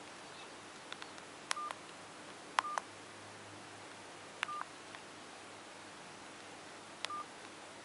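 Keypad tones of a CSL Blueberry Princess 9200 phone as its menu keys are pressed: four short, quiet beeps, each with a click at the press, spaced unevenly over several seconds, with fainter key ticks before the first.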